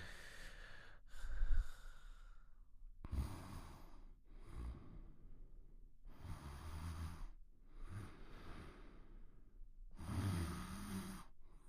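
Cartoon character snoring quietly: slow, even breaths in and out, about three full cycles. The first breath out carries a faint falling whistle, and a low wavering snore tone comes near the end.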